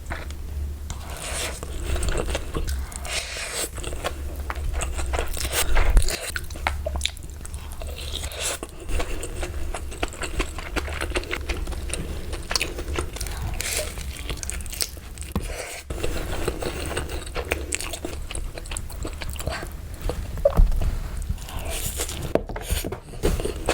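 Close-miked crunchy biting and chewing, a dense run of irregular crisp crackles, over a low steady hum.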